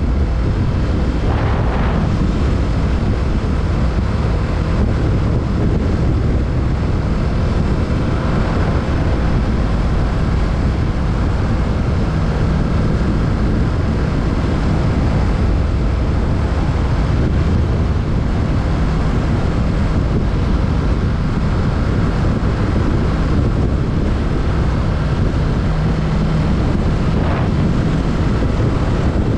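Kawasaki Z650's parallel-twin engine running under way, largely buried under steady wind noise on the microphone.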